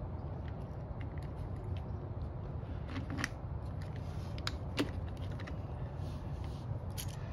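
Scattered light clicks and rattles of small metal parts being handled as the carburetor, gasket, housing and screws are fitted together on a leaf blower, over a steady low hum.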